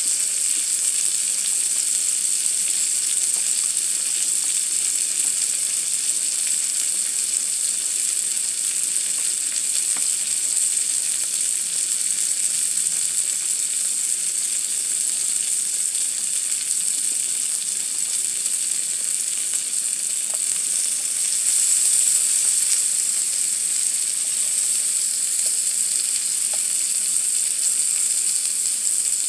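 Whole shrimp sizzling on the hot ribbed plate of an electric tabletop grill, a steady frying hiss that swells briefly about three-quarters of the way through.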